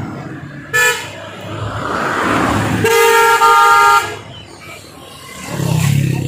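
Road traffic with car horns: one short toot about a second in, then a longer horn blast of about a second near the middle, with a vehicle rushing past just before it. A low engine sound rises near the end.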